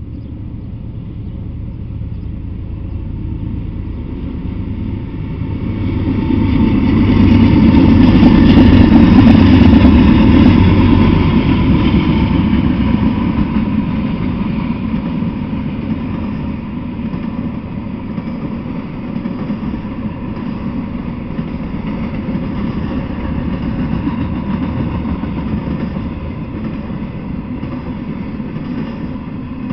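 Intermodal freight train passing: the rumble builds over the first several seconds and is loudest about a third of the way in, then settles to a steady rumble of container well cars rolling by on the rails.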